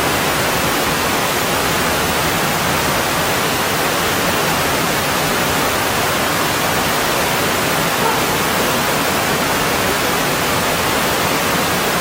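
Mountain stream water rushing over rocks in a steady, even wash.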